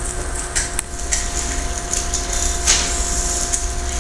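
Steady hum and low rumble of the room, with a few scattered short clicks of computer keys as a text file is paged through in a terminal.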